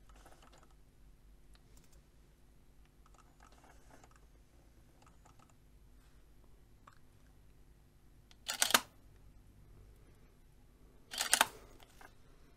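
DSLR shutter fired twice, about three seconds apart. Each release is a quick double clack of mirror and shutter.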